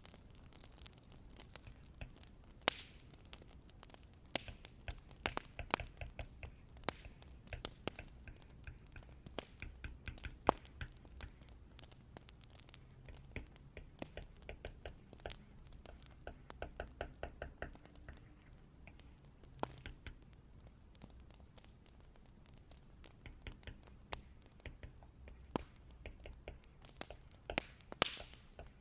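Wood fire crackling: irregular sharp pops and snaps over a low steady rumble, with a few runs of quick, even clicks.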